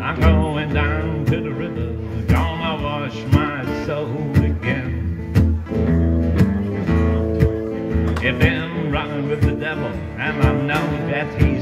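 Acoustic steel-string guitar strumming a steady rhythm while a hollow-body electric guitar plays lead lines over it: the instrumental intro of a country-blues song before the vocals come in.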